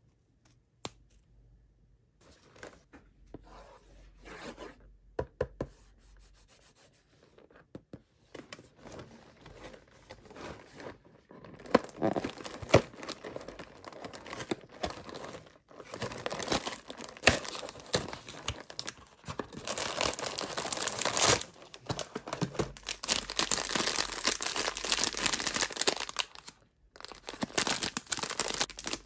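Light handling for the first ten seconds or so. A cardboard Pop-Tarts Bites box is then torn open, and a plastic snack pouch crinkles loudly as it is handled.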